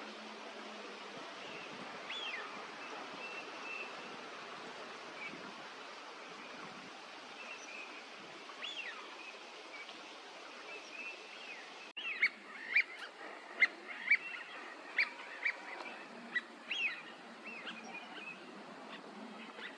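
Eurasian teal calling: short, high calls, scattered and faint at first, then a quick run of loud, sharp calls starting about two-thirds of the way in, over a steady background hiss.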